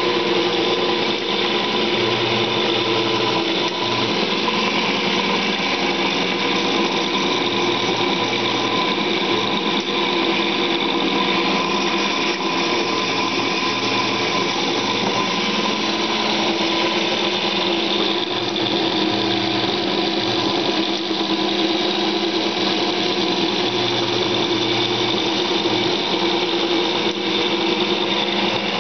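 A machine tool running steadily as it machines a cast iron flywheel: a continuous mechanical whine with several held tones and a rough cutting noise, unchanging throughout.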